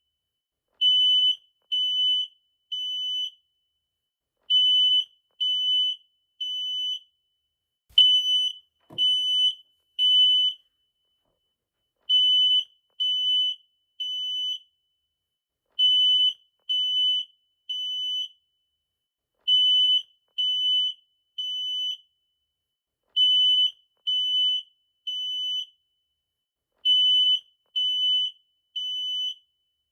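Smoke alarm sounding the temporal-three evacuation pattern: three shrill beeps of about half a second each, then a pause of about a second and a half, repeating about every four seconds. A single click about eight seconds in.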